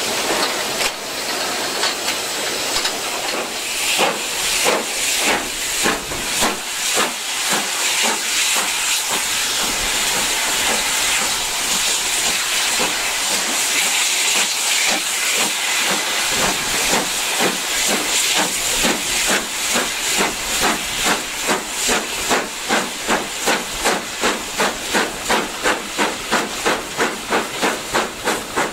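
GWR King Class four-cylinder 4-6-0 steam locomotive No. 6023 King Edward II pulling away, heard from the footplate: a loud hiss of steam with the exhaust beats coming gradually faster and more even as it picks up speed, about two to three a second near the end.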